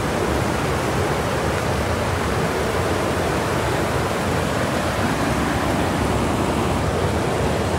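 Steady, even hiss of water, like flowing or falling water, with no breaks.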